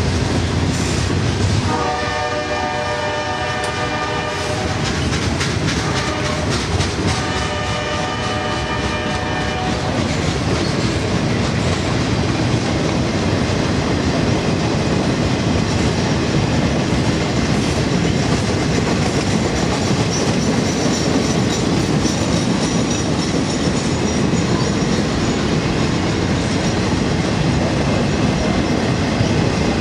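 Freight train of boxcars rolling past, wheels clacking over the rail joints, with a steady rumble and rattle of the cars. A locomotive horn sounds in long blasts: one ends just as the sound begins, then two more follow in the first ten seconds.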